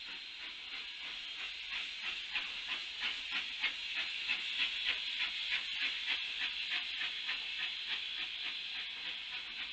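Narrow-gauge steam locomotive working, its exhaust chuffing at about three beats a second over a steady hiss; the chuffs build from about two seconds in and ease a little near the end.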